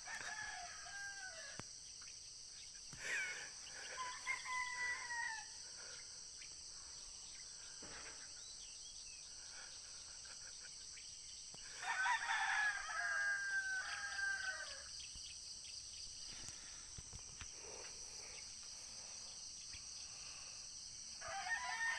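Roosters crowing three times at intervals, the loudest crow about halfway through, over a steady high-pitched insect chorus.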